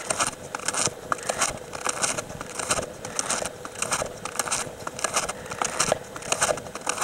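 Snowshoe footsteps crunching in snow at a steady walking pace, about two steps a second.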